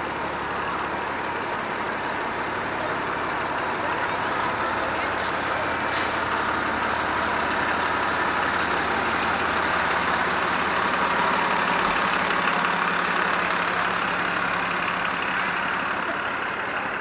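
A heavy parade vehicle's engine running as it rolls slowly past, growing louder toward the middle and fading near the end, with one sharp click about six seconds in.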